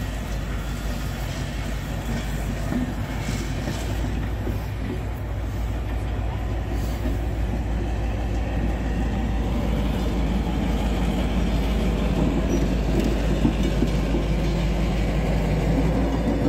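Slow-moving train of coaches rolling past with wheel-on-rail noise. The Metropolitan-Vickers A Class diesel locomotive A39 grows steadily louder as it draws level near the end.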